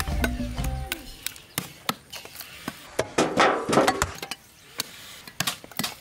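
A cleaver chopping ox meat and bone on a wooden chopping block: a run of sharp, irregular knocks, thickest a little past halfway. Low music fades out about a second in.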